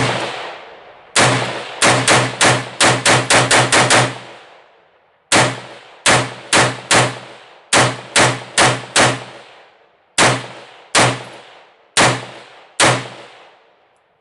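Semi-automatic AR-15 rifle (a Springfield Saint Victor) firing about two dozen shots, each sharp report ringing out and decaying. A fast string of closely spaced shots comes first, then slower, paced shots about half a second to a second apart, stopping shortly before the end.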